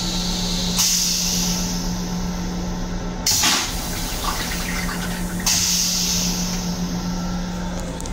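Long Island Rail Road M7 railcar toilet flushing: rinse water hisses into the stainless-steel bowl, a sudden loud rush a little over three seconds in drains the bowl, then the water hisses again. A steady low hum runs underneath.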